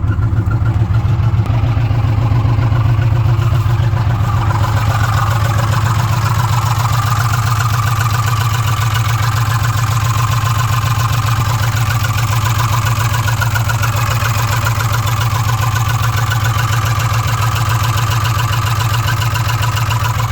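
Ford 5.4-litre V8 of a 2006 F-150 running steadily with a fast ticking clatter from the top of the engine. The inspector places the noise in the valve train near cylinders 2 and 3. The truck sets code P0016, a bank 1 cam-to-crank timing fault.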